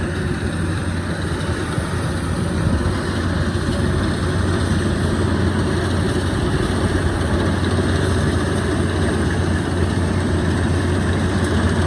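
Heavy farm machinery, a Yanmar combine harvester and a tractor, running steadily with a deep engine hum while working a machine bogged in soft mud.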